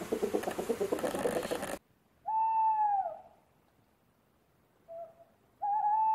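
Hens clucking, cut off abruptly about two seconds in; then an owl hooting: a long hoot that falls at its end, a pause, a brief note, and another long, wavering hoot.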